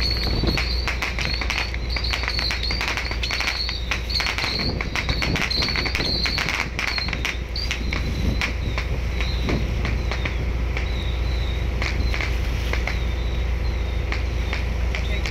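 Steady low rumble of a fishing boat under way, with wind on the microphone and scattered sharp crackles. Over it, a high warbling chirp repeats in short groups, clear over the first half and fainter later.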